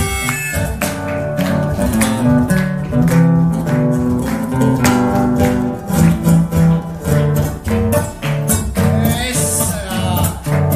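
Two acoustic guitars playing a lively Patagonian polka in a brisk, even rhythm, with hand percussion keeping the beat.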